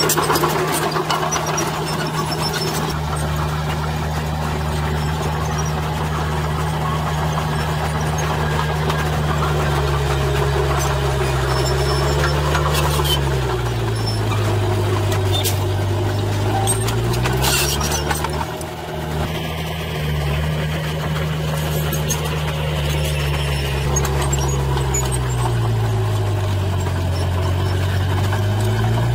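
Komatsu crawler bulldozer's diesel engine running under load as it pushes soil, with the clatter of its steel tracks. The engine note sags and recovers twice, about halfway through and again near the end.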